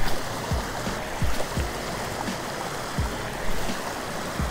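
Small stream running over a shallow riffle, a steady rush of water, with several short low thumps scattered through it.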